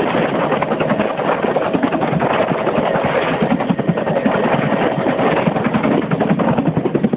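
Bell UH-1 Huey helicopter in flight: loud, steady rotor and turbine noise with a fast pulsing beat.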